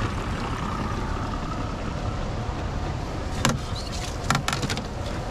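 Steady low rumble aboard a small fishing boat, with a few sharp knocks and clicks of gear being handled, about three and a half and four and a half seconds in.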